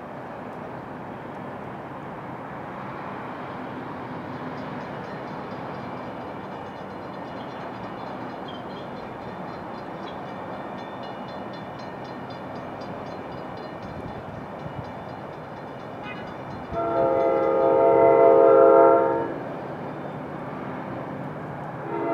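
Approaching commuter train's air horn sounding a chord of several tones: one long blast of about two and a half seconds, roughly three-quarters of the way in, and a second blast starting right at the end. A steady low rumble runs underneath.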